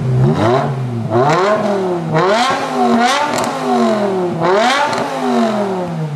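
BMW E60 M5's 5.0-litre V10 revved at standstill through an Eisenmann Race exhaust: a series of quick throttle blips, each climbing and falling back, with the typical V10 tone.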